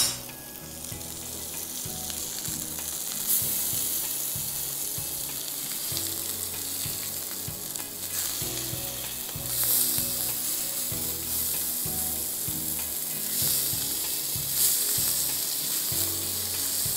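Minced-meat kababs sizzling in oil in a grill pan, a steady hiss. It surges briefly several times as the kababs are turned with a metal spatula.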